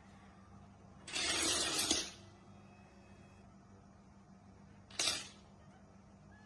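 A crash of about a second, with noise across all pitches, about a second in. A shorter sharp noise follows about five seconds in, over a faint steady hum.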